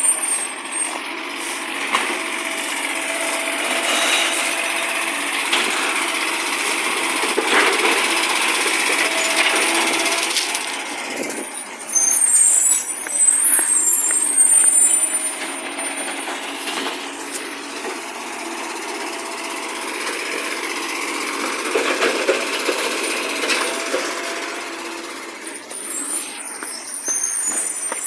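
Recycling garbage truck running, its engine loud from an exhaust leak. Brief high-pitched squeals come at the start, about halfway through and near the end, with a louder stretch of clattering mechanical noise just before the midpoint.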